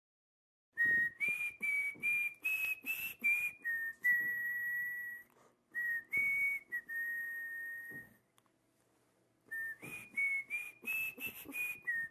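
A tune whistled on one clear tone: a run of short notes stepping slightly up and down, then two long held notes, a short pause, and another run of short notes.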